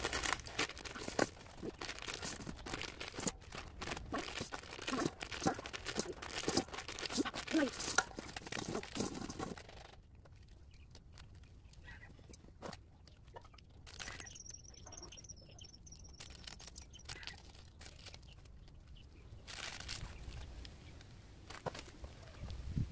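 Plastic instant-noodle packets crinkling and tearing as they are ripped open and emptied into a steel bowl, a dense run of rustles and clicks. About ten seconds in it drops to sparse, quieter rustles as seasoning sachets are opened and shaken over the noodles.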